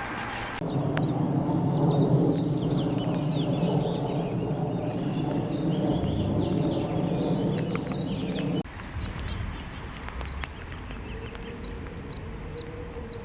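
Birds chirping over a steady low hum that cuts off abruptly about eight and a half seconds in; afterwards it is quieter, with faint regular high ticks.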